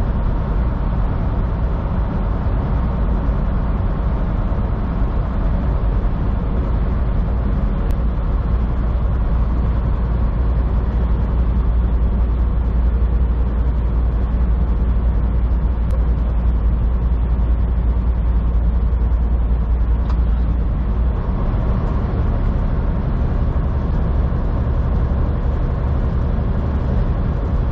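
Semi-truck's diesel engine droning steadily in the cab as it climbs a mountain grade, with tyre and road noise. The low engine note changes about three-quarters of the way through.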